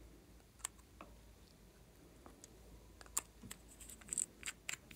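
Small plastic cosmetic containers clicking and tapping as they are handled and twisted open by hand: scattered sharp clicks, coming closer together in the last two seconds.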